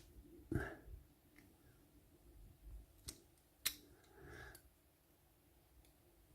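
A few sharp, quiet metal clicks and taps from handling a disassembled lock cylinder and picking tools, the loudest about half a second in and two more about three seconds in.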